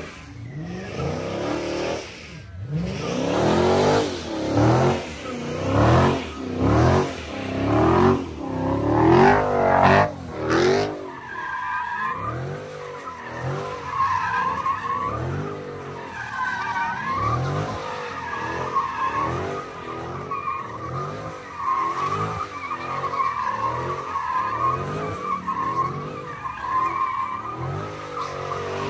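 Car engine revving hard, rising and falling about once a second, then from about eleven seconds in a steady, wavering tire squeal over the revs as the car spins its tires in a sideshow burnout.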